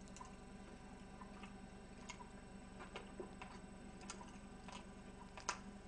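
Faint, irregular clicks of someone chewing a mouthful of food close to the microphone, over a steady low hum.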